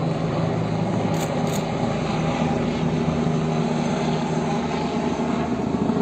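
Forestry coordination helicopter flying low overhead: a steady rotor chop over the engine's drone.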